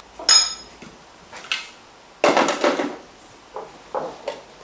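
A metal spoon clinks once with a brief ringing. A little past two seconds in come a louder, longer clatter and then a few light knocks as a plastic food-processor bowl is handled and set down on the worktop.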